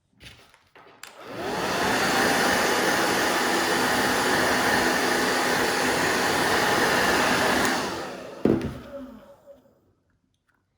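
Handheld blow dryer switched on, spinning up and blowing steadily for about six seconds, then switched off and winding down, used to heat adhesive grip tape. A click before it starts and a knock just after it stops.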